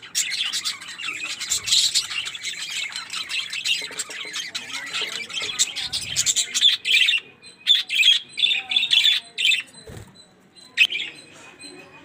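A flock of budgerigars chattering and chirping, dense for the first seven seconds or so, then thinning to scattered separate calls.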